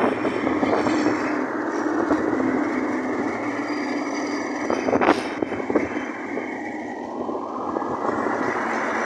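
Steady road and engine noise of moving close past a queue of heavy trucks loaded with sugar cane. A low engine hum sounds in the first few seconds, and there is one sharp knock about five seconds in.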